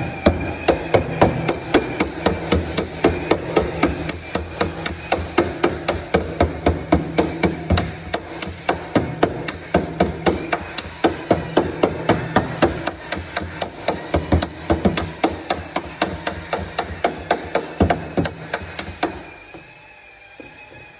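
Body hammer beating out a dent in a Skoda's sheet-metal wing, with rapid, even blows about three a second that stop about two seconds before the end.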